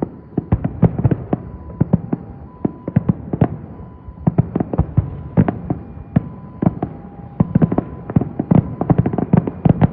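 Fireworks finale: shells bursting in rapid, irregular succession, several loud bangs a second over a continuous rumble.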